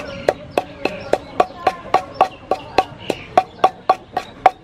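Wooden pestle pounding in a large wooden mortar, a steady run of knocks about three to four a second, each with a short hollow ring, crushing green chilies with sugar into a paste for a dipping sauce.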